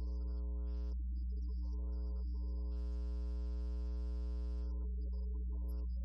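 Church organ playing slow sustained chords, the fullest and brightest about halfway through, over a steady low electrical hum.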